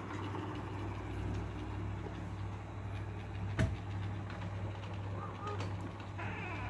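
A steady low hum with one short sharp click about three and a half seconds in.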